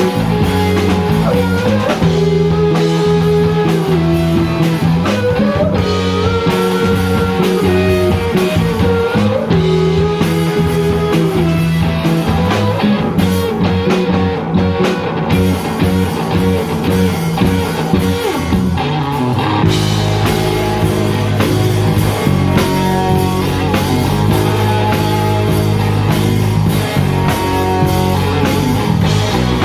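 A live rock band playing loudly: electric guitars over bass guitar and drum kit. About twenty seconds in, the bass line changes as the song moves into a new section.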